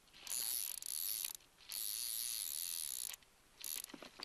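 Fly reel's click-and-pawl drag buzzing as line is stripped off it in three pulls of about a second each, with a short fourth pull near the end.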